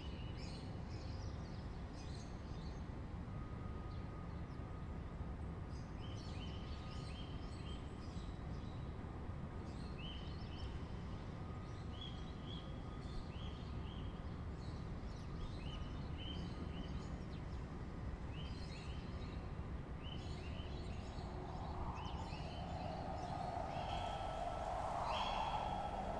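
Outdoor ambience: a small bird chirps in short paired calls every couple of seconds over a steady low rumble. A louder noise swells in the last few seconds.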